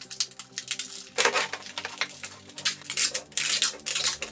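Adhesive tape being pulled off the roll and wrapped, crackling in dense bursts that pick up about a second in and again near the end.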